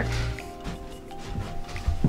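Background music with held notes over a low bass.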